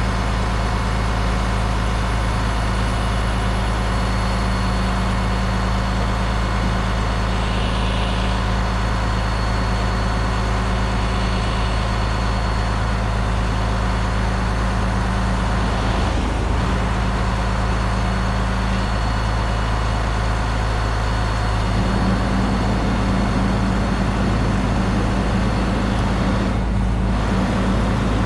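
Freightliner Cascadia semi truck's diesel engine running steadily with its PTO engaged, driving the Landoll trailer's hydraulics. Its tone shifts slightly about twenty seconds in.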